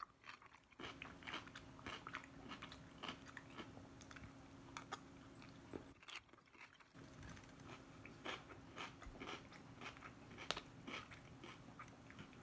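Quiet close-up chewing of a mouthful of creamy coleslaw, with many small, irregular wet crunches of shredded cabbage. The sound cuts out briefly twice, near the start and about six seconds in.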